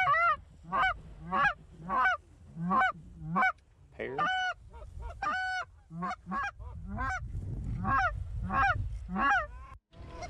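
Canada goose honking, one clear voice at about two honks a second, with a few longer drawn-out notes around four seconds in. Wind rumbles on the microphone underneath.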